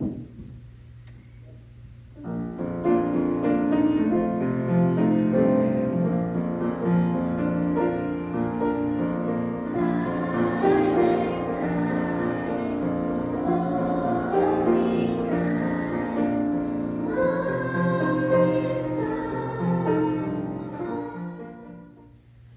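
Singing voices with piano accompaniment, a song beginning about two seconds in and fading out near the end.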